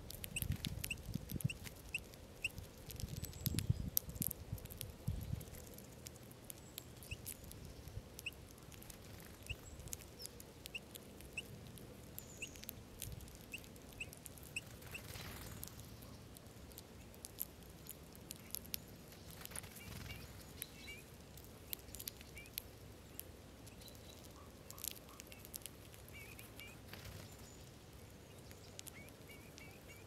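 Eurasian bullfinches feeding on sunflower seeds on snow: frequent small sharp clicks of seeds being pecked and cracked, with short high bird chirps repeating throughout. There is a low rumble in the first five seconds.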